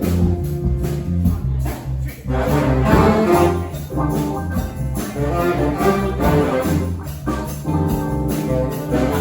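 Live brass band playing an upbeat tune: horns in several parts over a steady drum and percussion beat.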